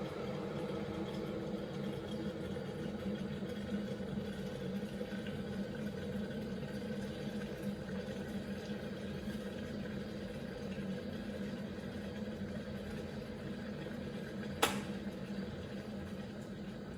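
Kenwood JKP230 electric kettle heating water, a steady hissing rumble as it nears the boil. A single sharp click comes near the end as the kettle's automatic switch turns it off at the boil.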